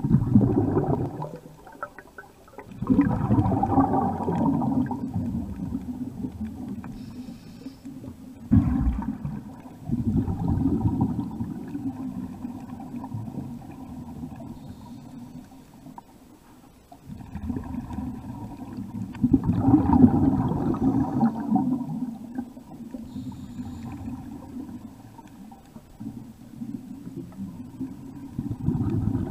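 Scuba diver's exhaled breath bubbling out of a regulator underwater, in repeated long bubbling, rumbling bursts with quieter stretches between breaths.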